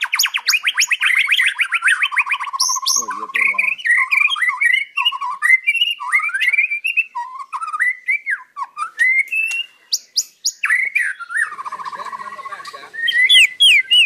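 White-rumped shama (murai batu) singing continuously: a fast run of repeated notes that drops into a lower trill, then a string of varied whistled phrases sliding up and down, and another rapid trill near the end.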